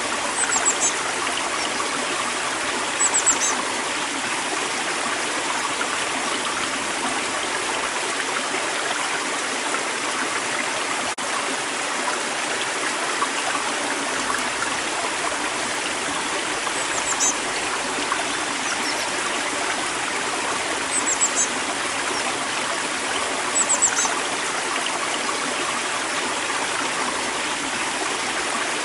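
A river flowing steadily over stones, with a small songbird giving short, high chirps in quick little clusters about five times.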